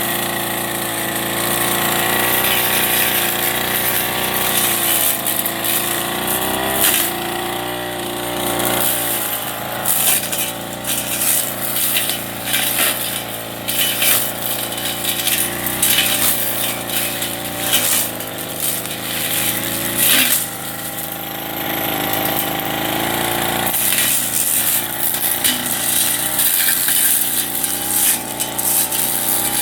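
Backpack brush cutter's small petrol engine running under load, its pitch rising and falling as it is throttled. From about nine seconds in, the spinning blade strikes weeds and debris, giving a stream of sharp ticks and knocks over the engine.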